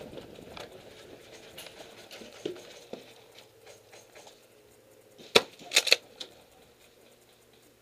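Footsteps scuffing on a gravel floor with gear brushing against wooden walls. About two-thirds of the way through come three sharp, loud knocks in quick succession, the first on its own and the next two close together.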